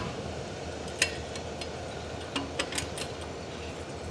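A few faint metallic clicks and clinks from a hand-thrown railroad switch stand's lever and latch, just after the switch has been thrown, over a low steady rumble.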